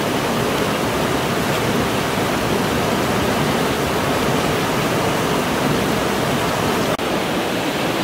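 Rushing water of a small cascade in a forest stream, a steady, loud rush with a momentary break about seven seconds in.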